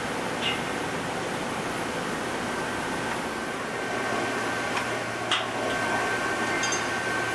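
Steady factory machinery noise with a faint constant whine, and a few short sharp clinks, the loudest about five seconds in.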